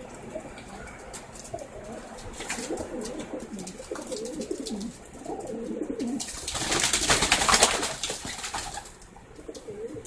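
Racing pigeons cooing, low and wavering, then a loud burst of splashing and wing-flapping lasting about two seconds from a pigeon bathing in a tray of water.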